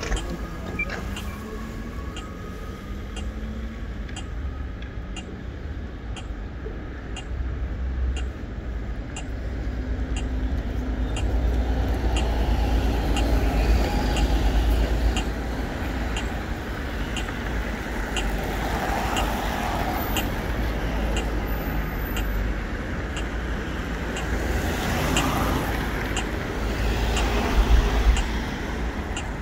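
City street traffic, cars and buses passing, swelling to a louder pass about halfway through, over a steady low rumble. A faint, even tick repeats a little more than once a second.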